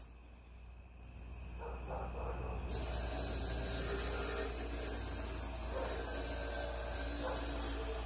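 Night insects trilling steadily at a high pitch. The trilling comes in abruptly about three seconds in.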